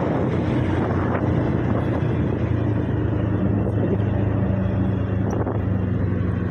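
Motorcycle engine running as the bike rides along, with wind buffeting the microphone. The engine note holds steady, with a second low tone coming in about three seconds in.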